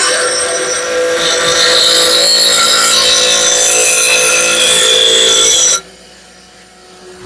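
Steel lawnmower blade being ground against a powered grinding wheel, a loud harsh grinding with a high whine, as the edge is sharpened. The grinding stops suddenly near the end when the blade comes off the wheel, leaving the grinder running much more quietly.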